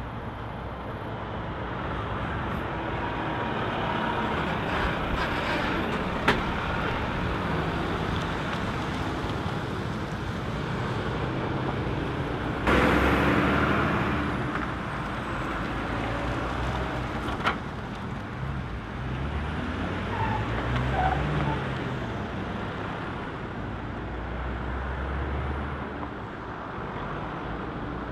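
Diesel engines of heavy semi-trailer trucks running as they drive slowly past and turn, with tyre and road noise. A sudden loud burst comes about halfway through, and later an engine's pitch rises and falls as a truck pulls away.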